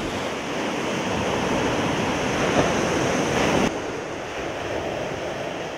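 Choppy waves breaking on a rocky, icy shore, a steady rush of surf with wind. It drops a little in level about three and a half seconds in.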